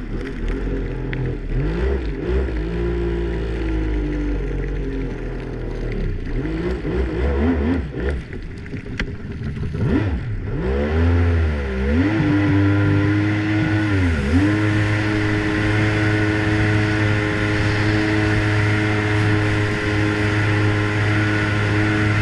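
Yamaha Wave Venture 1100 jet ski's freshly rebuilt three-cylinder two-stroke engine revving up and down as the throttle is worked, then held at a steady high pitch at speed for the second half, with the rush of water under the hull.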